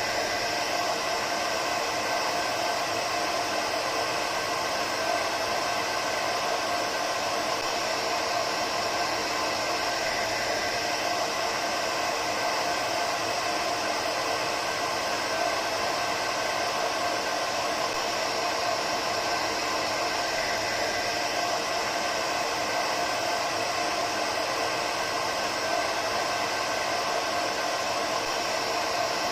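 Hair dryer running steadily: an even, unchanging rushing blow of air with a faint hum of the motor.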